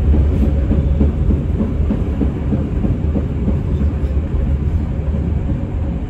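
Passenger train running along the track: steady low rumble of the carriage's wheels on the rails, heard from the rear of the last car.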